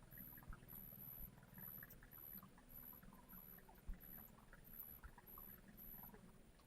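Faint forest ambience: an insect calling in very high, evenly repeated pulses, about two a second, over scattered soft clicks and a low hum, with one louder knock about four seconds in.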